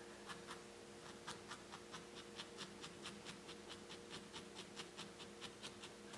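A single felting needle stabbing over and over into a small wool chick's head, felting in a black wool eye: faint, quick pokes at about five a second, sparser in the first second.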